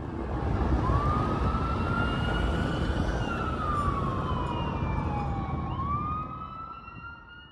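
Emergency vehicle siren wailing, its pitch slowly rising, holding, falling and rising again, over a deep rumble of traffic. The sound fades in over the first second and fades out near the end.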